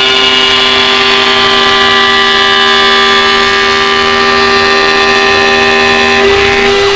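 CNC wood-turning lathe running, a steady machine hum and whine made of several held tones; about six seconds in, one of the lower tones drops out and the sound shifts slightly.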